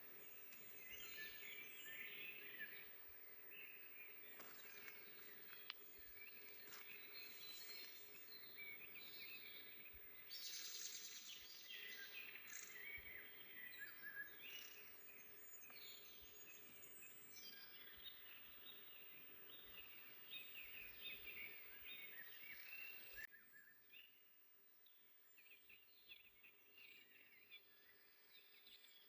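Faint chorus of several small songbirds singing and chirping over soft forest ambience, with a faint steady hum underneath. About three-quarters of the way through, the sound drops abruptly and the birdsong becomes quieter and sparser.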